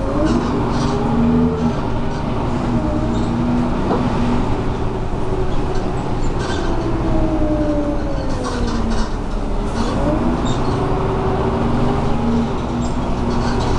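Renault R312 city bus's diesel engine and drivetrain running under way, heard from inside the cabin: a whine that rises as the bus pulls away, falls off between about six and nine seconds in, then climbs again, over a steady low rumble and occasional interior rattles.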